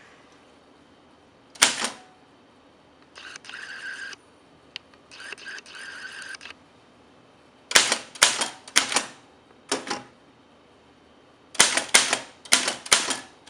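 Remington manual typewriter being typed on: a single sharp click, two rasping mechanical stretches of about a second each, then two quick runs of sharp typebar strikes against the platen in the second half.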